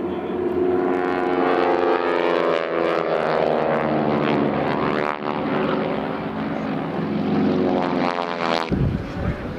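Several North American T-6 Texan warbirds' radial engines and propellers droning overhead during formation aerobatics, the engine tone sliding up and down in pitch as the planes pass and turn. The drone cuts off suddenly near the end.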